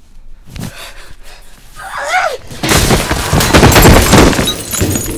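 A thud, a short cry about two seconds in, then from about two and a half seconds a loud, dense run of crashing and banging impacts from a violent struggle.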